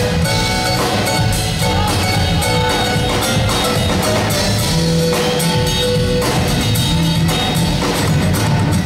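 Live band playing an instrumental passage on acoustic guitar, bass guitar and drum kit, with steady drum strokes under sustained guitar notes.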